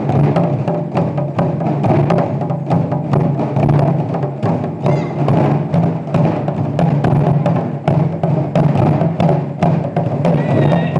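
Ensemble of Japanese taiko drums played together in a fast, driving rhythm of dense, repeated strikes.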